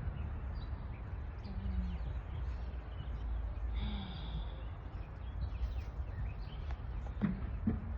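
Outdoor ambience: a steady low rumble with birds chirping faintly now and then, and one clearer, brief high call about four seconds in.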